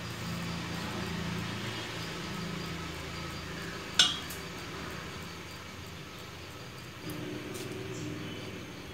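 Metal spoon scraping and clinking against a steel plate while batter is spooned over a stuffed ripe banana, with one sharp clink about four seconds in, over a steady low hum.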